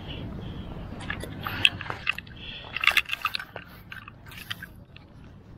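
Crabs being handled in a crab net, making a run of irregular clicks and scrapes about a second in that is densest around the middle, over a low steady rumble.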